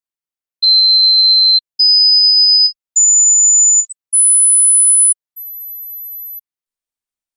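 Hearing-test tones: five steady, very high-pitched pure beeps, each about a second long, stepping up in pitch one after another to check how high the listener can hear. The last and highest tone is quieter than the others.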